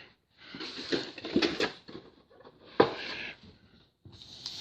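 A stack of trading cards being handled and flipped through: cards sliding and scraping against each other in several short rustling bursts, with a sharp click almost three seconds in.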